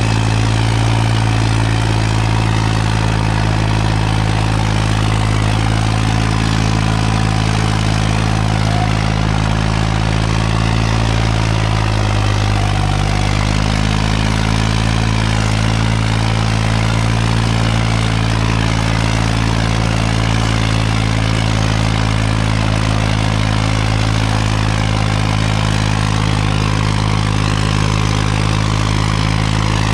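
A diesel tractor engine runs steadily and loudly. Its pitch sags briefly about twelve seconds in, then recovers.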